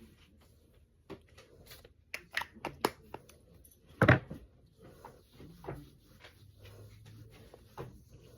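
Skincare bottles and caps being handled: a run of small clicks and taps, with one louder knock about four seconds in.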